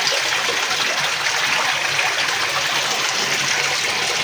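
Steady rushing of water, an even hiss without breaks or distinct splashes.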